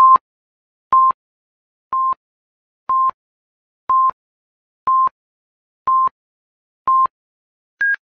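Electronic countdown beeps, one short steady tone each second, eight times, then a shorter, higher-pitched beep near the end.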